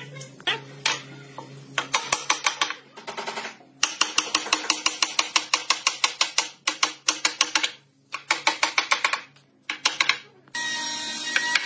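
Rapid runs of sharp clicks or taps, about six a second, in several bursts separated by short pauses; near the end a steadier noise comes in under them.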